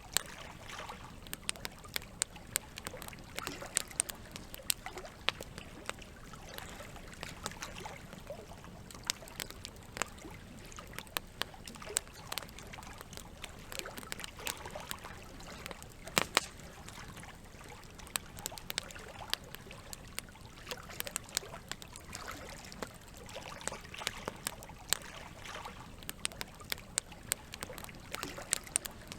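Wood fire crackling with frequent irregular sharp pops, over a steady trickle of flowing water; one pop a little past the middle stands out as the loudest.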